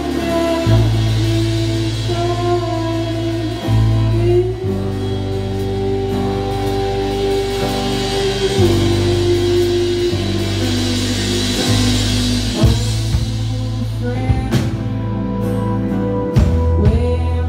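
Live band playing a song: a singer strumming an acoustic guitar, with electric guitar, bass guitar and drums. The voice holds long notes over steady bass notes, and the cymbals swell past the middle.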